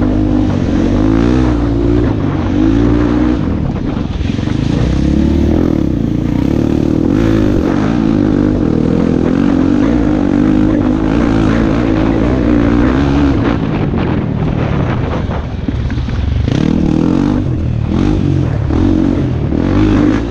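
Dirt bike engine running close to the microphone, its pitch rising and falling as the throttle is opened and eased over and over. A few sharp knocks come in the last few seconds.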